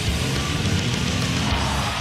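Rock music with guitar, loud and steady.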